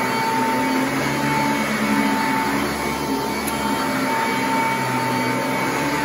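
Sanitaire commercial upright vacuum cleaner running steadily as it is pushed over carpet. It makes a continuous motor whine at a constant pitch over a rushing noise, and its low hum shifts slightly with the strokes.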